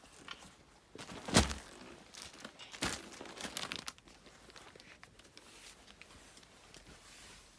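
Folded woollen shawls and plastic-wrapped garments being handled on a shop counter: rustling and crinkling, with a sharp bump about a second and a half in and a smaller one about three seconds in.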